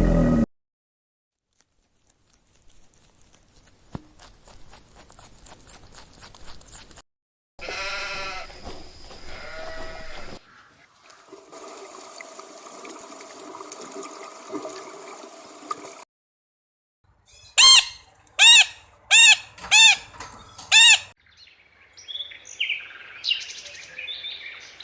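A run of separate animal-call clips one after another, with silent gaps between them. About two-thirds through come five loud calls in quick succession, each rising and falling in pitch. Chirping follows near the end.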